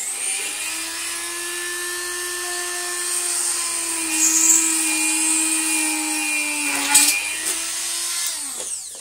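Dremel rotary tool with a drill bit running at a steady high whine while drilling a small pilot hole in a Dyson vacuum's plastic housing. The pitch sags a little midway as the bit bites, and the motor winds down near the end.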